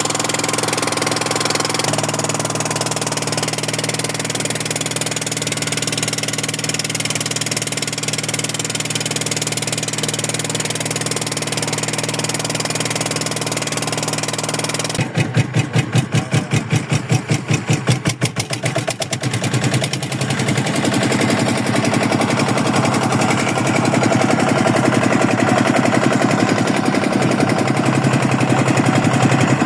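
Engine running steadily. About halfway through it goes into a few seconds of rapid pulsing, then settles back to a steady, slightly louder run.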